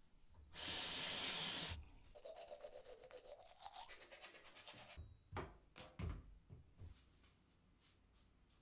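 Kitchen sounds: a loud hissing rush about half a second in, then water pouring into a container, its pitch rising slowly as it fills, then several knocks, as of a bottle and glass being set down, between about five and seven seconds.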